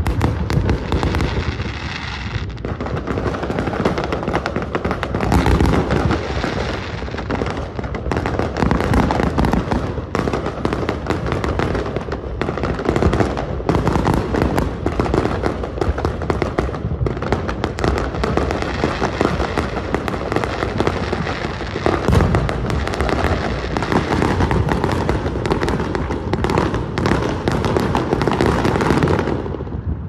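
Fireworks going off in quick succession: a dense, continuous crackle of bursting shells and reports with low booms underneath. It stops just before the end.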